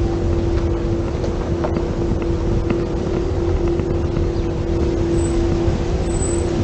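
Low, steady rumble of wind buffeting the microphone, with a steady droning hum underneath.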